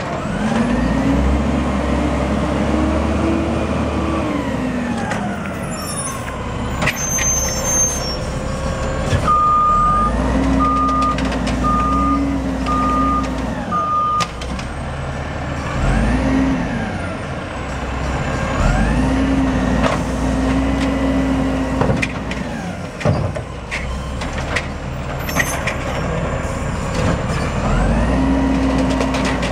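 Automated side-loader garbage truck working its hydraulic arm: the diesel engine revs up and holds for a few seconds, then drops back, again and again as each recycling cart is lifted and emptied, with clunks from the carts and arm. About a third of the way in there is a run of five beeps about a second apart.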